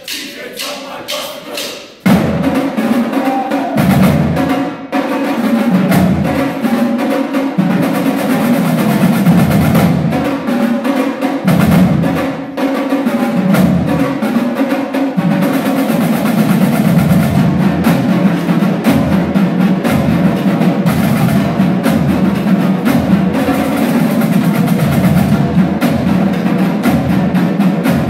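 Marching drumline of Pearl snare drums and bass drums: a few evenly spaced clicks count off for about two seconds, then the whole line comes in together, playing loud, dense drumming with deep bass-drum beats under the snares.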